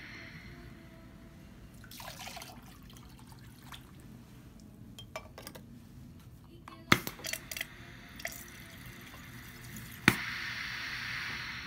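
Hibar 4F2C piston filling machine dispensing water from its nozzle into a glass beaker: a few sharp clicks around the middle, then a sharp click near the end and a steady rush of water jetting into the beaker.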